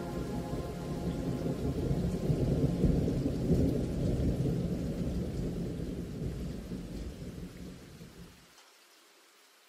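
Rolling thunder over rain: a low rumble that swells over the first few seconds, then dies away and cuts off about eight and a half seconds in.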